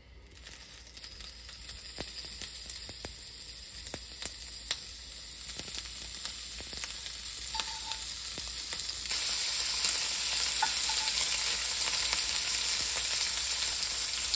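Smoked duck slices sizzling in a hot enamelled cast-iron grill pan. The sizzle grows louder and steps up about nine seconds in, with scattered clicks of metal tongs against the pan.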